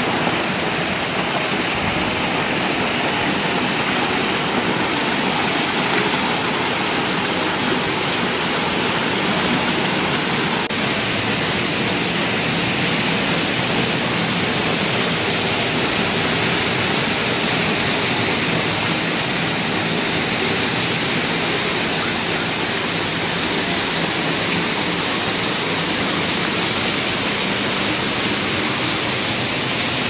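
Waterfall pouring over rocks into a pool, a loud, steady, even rush of falling water.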